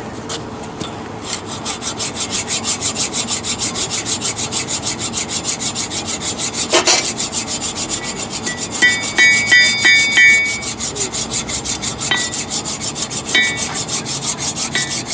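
A hand file or rasp stroked rapidly back and forth over steel, about three even rasping strokes a second, with one sharp knock near the middle and a few short ringing metallic tones a little after.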